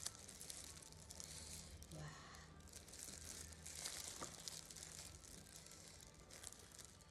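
Faint crinkling and tearing of thin plastic gloves as hands peel the shell off a grilled shrimp, in a few soft bursts.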